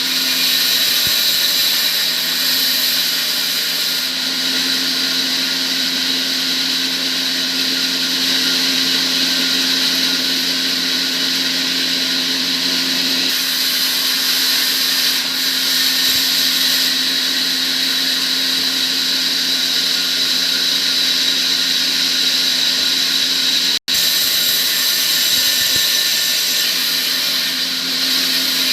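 Electric power tool motor running steadily with a high whine and a lower hum, broken by a split-second dropout near the end.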